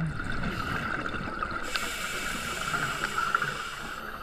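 Underwater sound picked up through a camera housing: a scuba diver breathing through a regulator, with a hissing breath lasting about two seconds starting near the middle, over a steady high whine.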